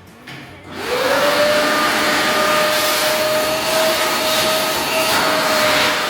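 Vacuum cleaner switched on about a second in: its motor spins up with a quickly rising whine, then runs steadily with a loud rush of air.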